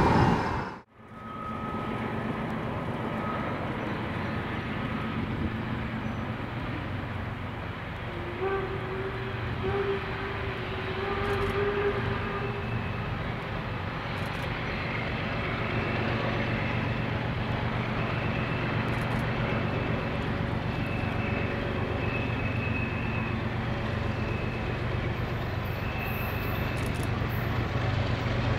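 Norfolk Southern diesel locomotive approaching slowly, its engine running as a steady low rumble that grows gradually louder. There is a brief dropout about a second in.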